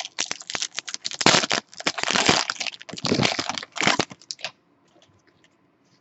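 Trading cards and pack wrappers being handled: a quick run of rustles, crinkles and clicks that stops about four and a half seconds in.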